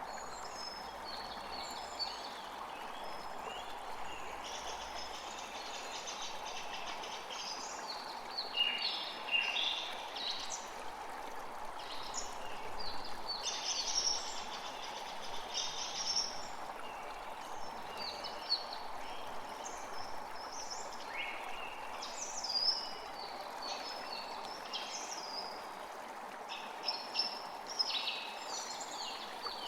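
Wild birds chirping and calling in quick short phrases over a steady rushing background, the calls busiest from about a quarter of the way in to the middle and again near the end.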